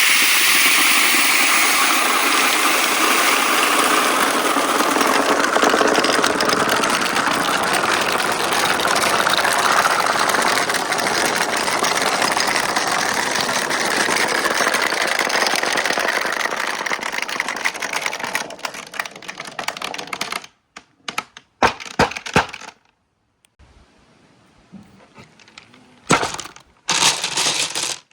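Many marbles rolling and clattering down a marble run at once, a dense continuous rattle. After about 18 seconds it thins to scattered clicks, goes briefly quiet, then a few last marbles click near the end.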